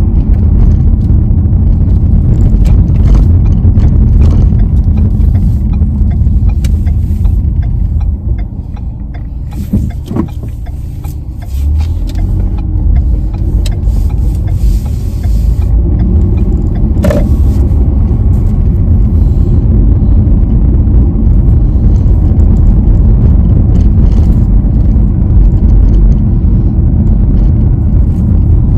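Car cabin noise while driving: a steady low rumble of the engine and tyres on the road. It drops off for a few seconds about a third of the way through, then comes back up. There is one sharp click a little past halfway.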